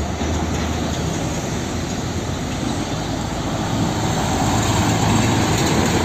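Heavy diesel trucks driving past on a road: steady engine rumble and tyre noise that starts and stops abruptly. It grows a little louder near the end as a fuel tanker truck passes close.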